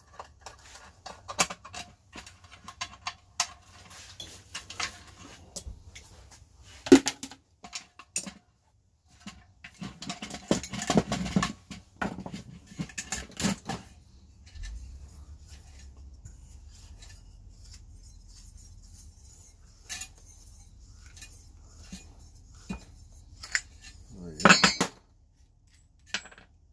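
Metal clinks, knocks and scraping as an aluminum security light fixture is taken apart by hand with a screwdriver. The handling is busiest about ten to fourteen seconds in, with a loud clatter near the end.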